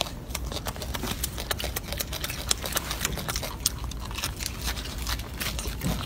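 Golden snub-nosed monkey eating a peeled ugly tangerine: irregular sharp clicks of chewing and of its fingers pulling at the fruit, several a second.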